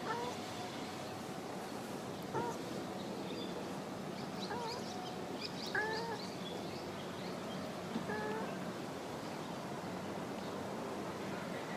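A stray cat making short, soft 'an-an' calls in a sultry voice rather than loud meows. There are about five calls, spaced a second or two apart.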